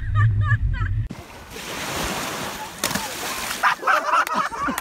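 Shallow sea water and surf hissing at the shoreline, with one sharp click and a voice near the end. Before that, for about a second, wind rumbles on the microphone under a voice.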